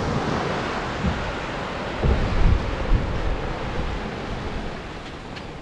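Small waves washing onto a sandy beach, with wind rumbling on the microphone, strongest about two to three seconds in.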